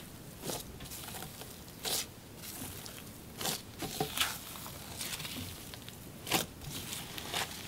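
Cloud cream slime packed with crumpled silver foil sheets being kneaded and pressed by hand: soft foil crinkling and slime squishing, broken by scattered sharp crackles at irregular moments.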